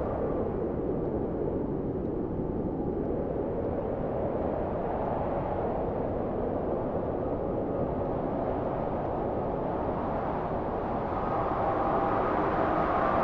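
A steady, dense low rumble, with faint sustained tones swelling in about eleven seconds in.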